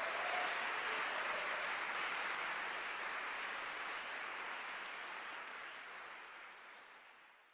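Audience applauding steadily, then dying away over the last few seconds.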